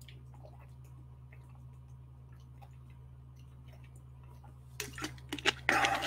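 Low steady hum with faint scattered clicks, then about five seconds in a person drinking water close to the microphone, loud and irregular for about a second.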